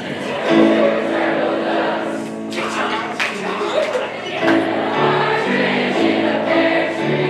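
A choir singing, holding long sustained chords.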